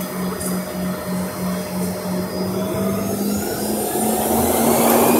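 Airliner's jet engines heard from inside the cabin: a hum pulsing about three times a second, then from about halfway through a rising whine as the engines spool up and the sound grows louder, thrust building for takeoff.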